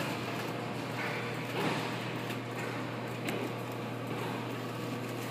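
Steady electrical hum and room noise of running claw crane machines, with a couple of faint knocks as the claw is worked.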